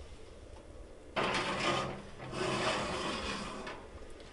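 A cast iron skillet and wire oven rack scraping as the skillet is slid into the oven: two grating scrapes, the first about a second in and a longer one just after.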